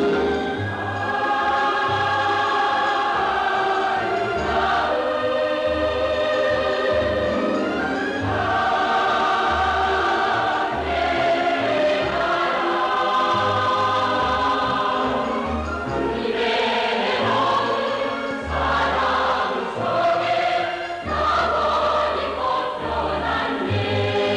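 Soundtrack music: a choir singing long held notes over an instrumental accompaniment with a repeating bass line.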